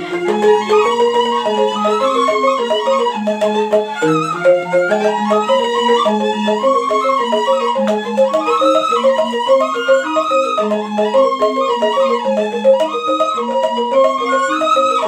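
Balinese rindik ensemble playing: bamboo-keyed xylophones struck with mallets in a quick, steady run of interlocking notes in slendro tuning, with suling bamboo flutes playing a melody over them.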